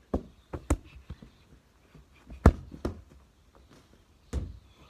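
A football being kicked and touched on grass: a string of separate dull thuds, the loudest about two and a half seconds in.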